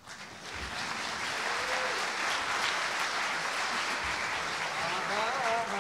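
Theatre audience applauding, building over the first second and then holding steady.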